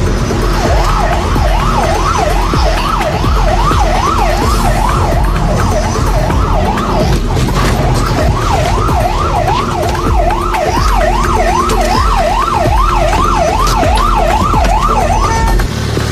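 Police car siren in a fast yelp, its pitch rising and falling two to three times a second, heard from inside the pursuing car over its running engine; it cuts off near the end.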